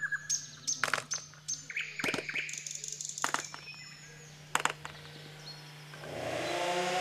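Small birds chirping and calling outdoors, with a few sharp clicks among them. About six seconds in, a louder steady rasping noise begins.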